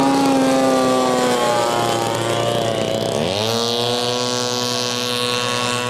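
Engine of a giant-scale radio-controlled Fokker D.VII model biplane in flight, its pitch sagging slightly during a low pass, then rising sharply about three seconds in as the throttle is opened, and holding steady at the higher pitch as the plane climbs away.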